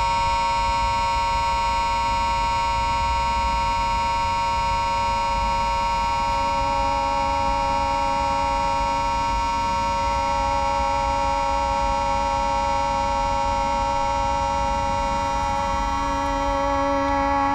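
A steady, horn-like drone of several devices sounding together on the note A, a stack of sustained tones. A lower tone joins about six seconds in.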